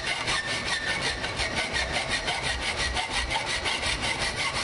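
Hand file rasping across a knife's steel locking bar and handle spine in quick, even strokes, roughly six a second, cutting jimping notches along earlier hacksaw cuts.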